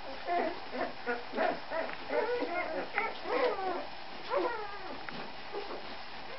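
Rhodesian Ridgeback puppies squeaking and whimpering while nursing: many short, overlapping high calls, some sliding down in pitch.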